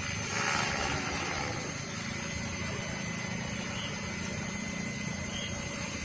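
KDS Agile 5.5 radio-controlled helicopter in flight at a distance: a steady hum of rotor and motor with a thin, even whine, swelling slightly in the first second.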